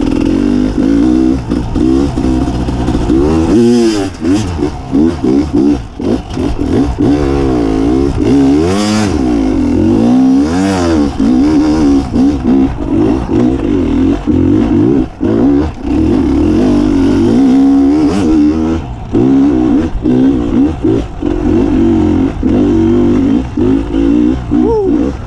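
Beta 300 RR two-stroke single-cylinder enduro motorcycle engine revving up and down under constantly changing throttle while trail riding. Its pitch rises and falls again and again, with a few brief drops in level as the throttle is chopped.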